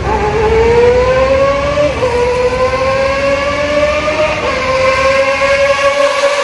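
Kawasaki ZX-25R inline-four, bored up to 300 cc and fitted with a Toce racing exhaust, revving hard at very high rpm inside a road tunnel. Its shrill wail climbs in pitch and dips briefly at upshifts about two seconds in and again about four and a half seconds in.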